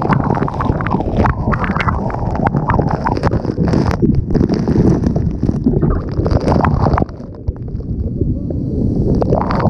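Wind-driven waterfall spray at Niagara Falls blasting the microphone: heavy wind buffeting with water drops crackling and spattering on the camera over the rumble of the falls. It eases for a moment about seven seconds in.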